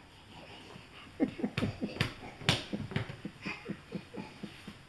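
A baby's quick breathy grunts: a rapid run of short falling sounds from about a second in until near the end, with a few sharp clicks mixed in.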